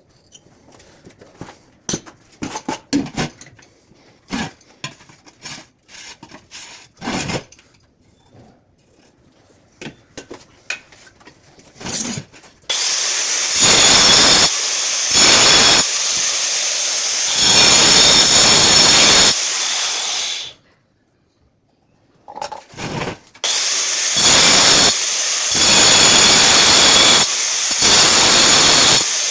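Scattered knocks and scrapes of hand work on tile, then a high-speed power tool running in long loud stretches with a high whine, its loudness swelling and dipping. The tool stops briefly about two-thirds of the way through and starts again.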